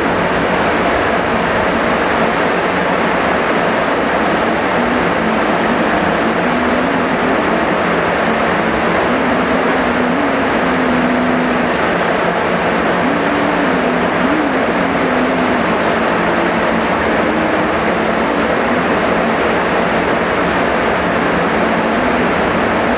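Heavy rain falling in a steady, even downpour, loud and unchanging.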